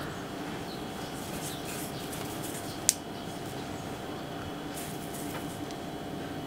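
Steady hum of room noise with soft rustles from hands picking pieces of red bean paste off a ceramic plate, and one sharp click about three seconds in.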